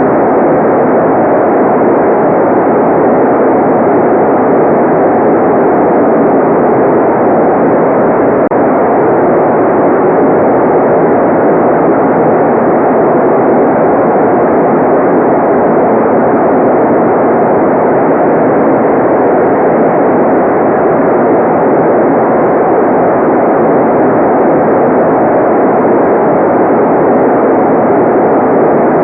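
Loud, steady white noise for relaxation: an even, unchanging rush with most of its energy in the lower-middle range and no high hiss.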